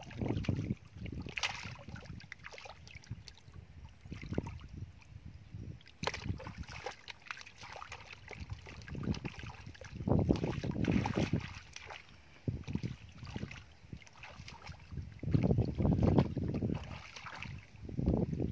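Hands sloshing and squelching through shallow muddy water in irregular splashes while feeling for fish in the mud. The loudest sloshing comes about halfway through and again a couple of seconds before the end.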